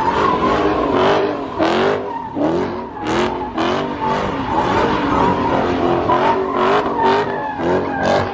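Car doing a burnout: the engine revs up and down over and over while the rear tires squeal and spin against the pavement.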